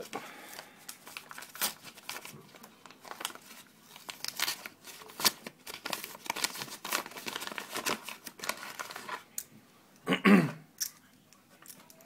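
A mailing envelope being torn open and crinkled by hand: an irregular run of ripping and rustling, with one louder short burst just after ten seconds in.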